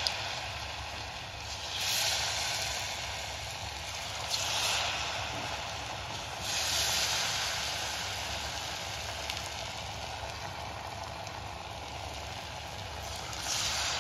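Baby corn in maida and cornstarch batter deep-frying in hot oil: a steady sizzle that swells louder several times.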